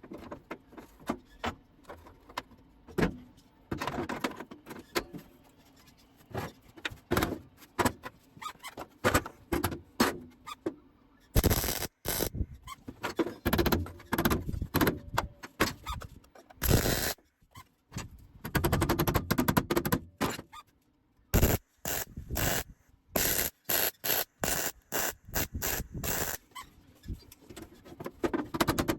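Metalworking on a Land Cruiser's sheet-metal body panel: harsh bursts that stop and start many times, short ones mostly, with a few longer runs of a second or two in the middle.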